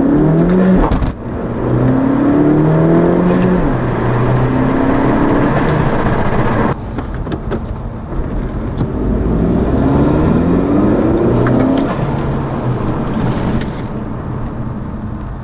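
2017 Honda Civic 1.5 L turbocharged four-cylinder with an aftermarket cold air intake, accelerating hard through the gears of its manual gearbox: the engine note climbs in pitch, breaks off at a gear change about a second in and again near the middle, then climbs once more before easing off.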